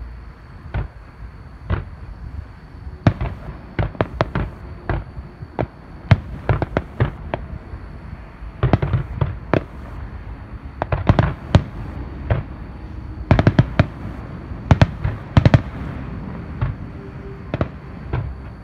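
Aerial firework shells bursting: sharp bangs, two single ones in the first two seconds, then many more in quick clusters.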